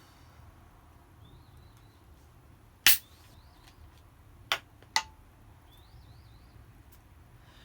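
Three sharp clicks or knocks, the first and loudest about three seconds in, then two closer together about a second and a half later, with faint high chirps now and then in the background.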